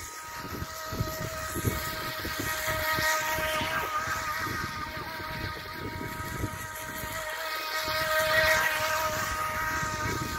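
Small radio-controlled model speedboat's motor whining steadily while running on the water, swelling louder twice, around three seconds in and again near eight seconds. Wind buffets the microphone.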